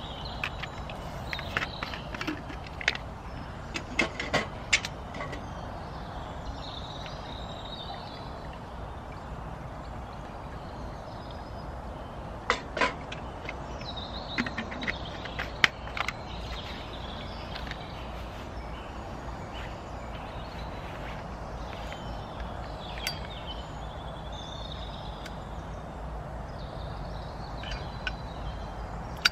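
Outdoor woodland background with birds calling now and then, broken by a few clusters of sharp clicks and knocks, the loudest about 13 to 16 seconds in.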